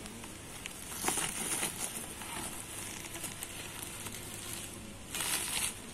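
Woven plastic sack rustling and crinkling as a metal snake hook is pressed and slid across it, in two louder bursts: about a second in and again near the end.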